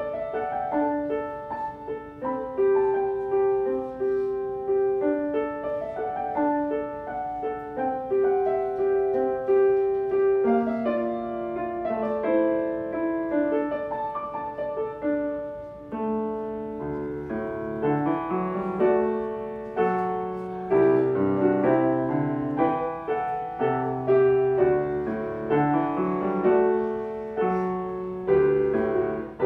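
Solo piano playing a melody of separate notes over a light accompaniment. About halfway through, lower bass notes join in and the music grows fuller.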